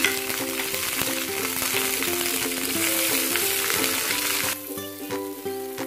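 Garlic, onion and green chillies sizzling in hot oil in a frying pan, over background music. The sizzle cuts off suddenly about four and a half seconds in, leaving only the music.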